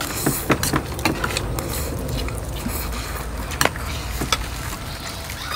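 Irregular clicks and knocks of eating: spoons and forks tapping and scraping on plates of fried chicken wings and rice, over a steady background hiss.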